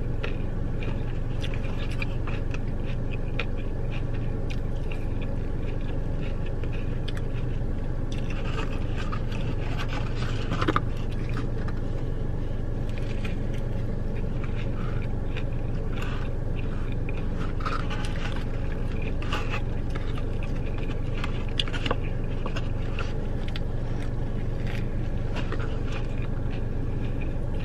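Chewing a fried chicken sandwich, with scattered short crunches and clicks, over a steady low hum inside a car.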